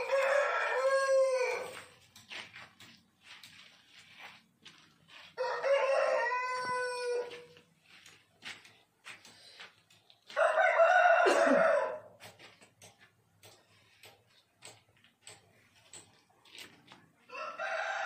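Aseel roosters crowing four times, each crow under two seconds long and a few seconds apart, the last starting near the end.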